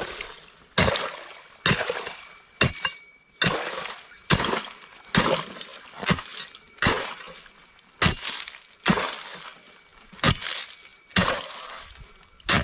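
Repeated hand strikes chopping a hole through pond ice, about thirteen sharp cracking blows at a steady pace of a little more than one a second, each with a short crunch of breaking ice.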